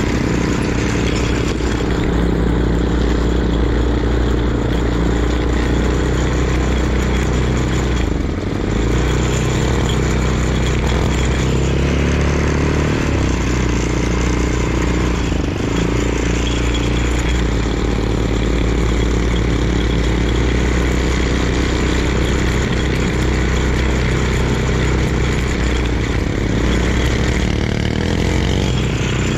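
Single-cylinder engine of a Linhai Eyas quad bike (ATV) running under way, heard from the rider's seat, its note easing and picking up a little with the throttle a few times.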